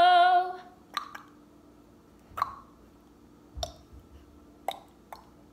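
A woman's drawn-out, high-pitched excited shout dies away in the first half second. After it come a handful of short, soft clicks and pops, about a second apart, over a faint steady hum.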